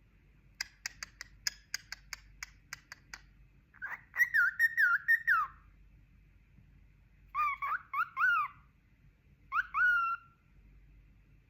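Pet cockatiel whistling: a quick run of about a dozen sharp clicks, then a warbling whistle of about a second and a half, followed by two shorter whistled phrases that rise and fall in pitch.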